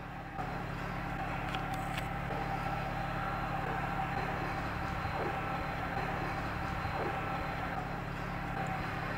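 Airbus A300-600 freighter's twin turbofan engines running at low taxi thrust as it lines up: a steady whine over a low rumble.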